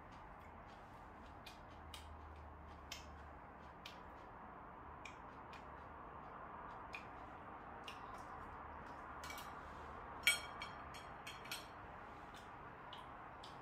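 Quiet eating at a table: scattered small clicks and crunches of chopsticks on plates and chewing fried chicken, with a sharper cluster of clicks about ten seconds in, over a faint steady room hum.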